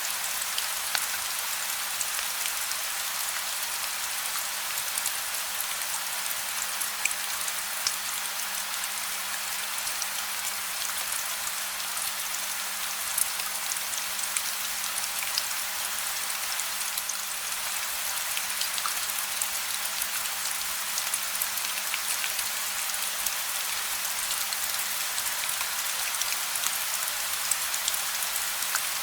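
Steady gentle rain falling, a constant hiss dotted with the sharp ticks of individual drops.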